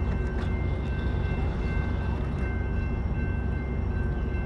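Amtrak California double-deck passenger train beside the platform: a steady low rumble with several high, steady whining tones over it and a few faint clicks about half a second in.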